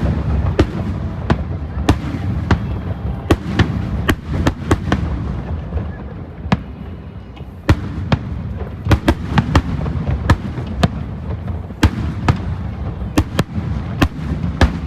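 Aerial fireworks display: shells bursting in quick, irregular succession, sharp cracks several times a second over a steady low rumble of more distant bursts.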